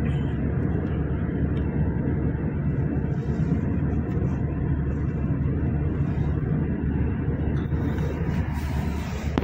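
Steady low rumble of road and engine noise inside a car moving at speed.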